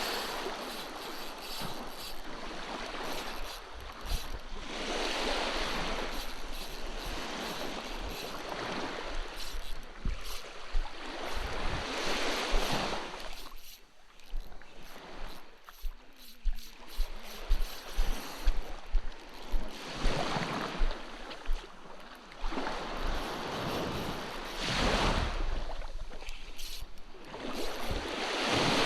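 Sea waves washing in, the surf noise swelling and easing every few seconds. A quick run of sharp knocks comes about halfway through.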